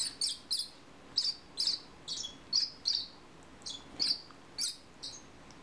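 Hand-fed Bourke's parakeet chick chirping in short, high begging calls as it takes formula from a feeding syringe, about three chirps a second in an uneven run.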